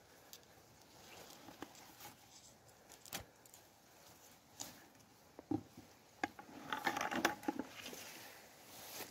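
Grass and dry leaves rustling as a hand and knife part the undergrowth, with scattered small clicks and knocks; a louder stretch of rustling comes about seven seconds in.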